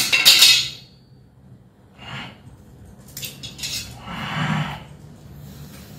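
Metal kitchen pots and utensils clanking: a sharp clang right at the start that rings briefly, then scattered softer clinks and rustles.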